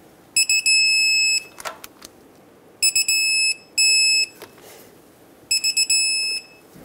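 Digital torque wrench beeping as each wheel-hub bolt is pulled up to its 65 ft-lb setting. It beeps three times over, each time a few quick high beeps running into a longer held beep, with light knocks of the wrench between.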